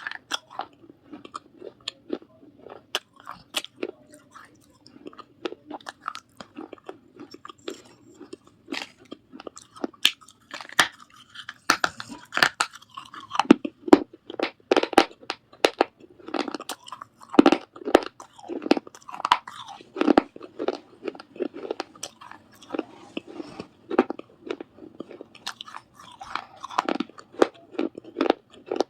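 Biting and chewing pieces of a baked clay surahi water pot, a dense, irregular run of sharp crunches and cracks.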